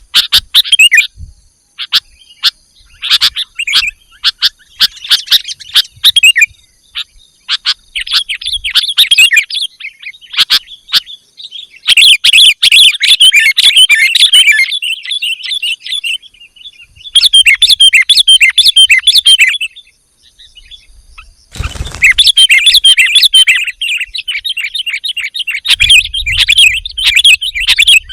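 Sooty-headed bulbul (kutilang) calling: scattered short, sharp chirps, then several bursts of rapid, busy chattering, each lasting a few seconds.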